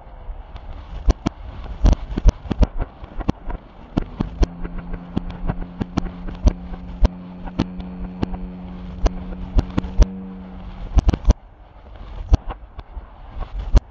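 Fireworks finale: a rapid barrage of aerial shells bursting, sharp bangs coming two to four a second over a low rumble. A steady droning hum runs underneath from about four seconds in until about eleven seconds.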